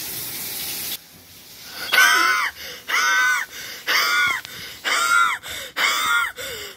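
A high, wheezy voice-like call repeated five times, about once a second, each call rising and then falling in pitch. For the first second a hiss of running water goes on, then cuts off.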